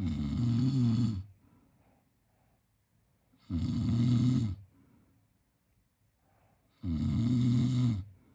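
A person snoring: three long snores, one about every three and a half seconds, with quiet gaps between.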